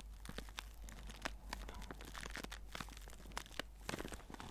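Small clear plastic zip bag stuffed with white scraps, squeezed and crinkled between the fingers: an irregular stream of soft crackles.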